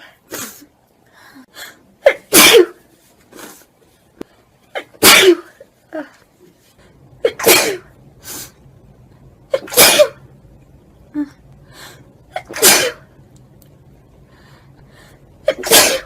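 Six loud human sneezes in a row, about one every two and a half seconds, with softer short sounds between them.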